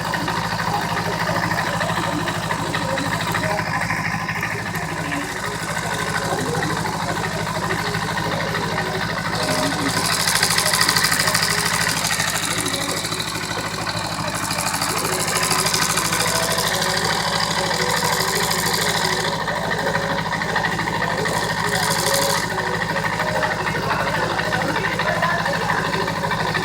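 Motorcycle parallel-twin engine idling steadily, with a fast light clatter from the cam chain while the manual cam chain tensor is being adjusted. The high sounds brighten briefly twice, about ten seconds in and again around twenty seconds.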